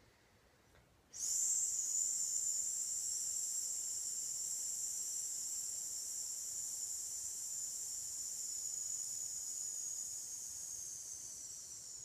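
A woman's long, steady 'sss' hiss through the teeth as she exhales slowly and evenly in S breathing, starting about a second in and lasting some eleven seconds, fading a little near the end.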